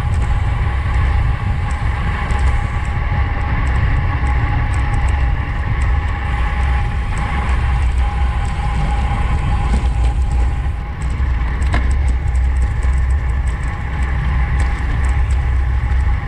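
Wind buffeting the microphone of a camera on a road bike ridden at race speed: a steady, deep rush with road and tyre noise, a faint steady whine and a few sharp clicks from the bike.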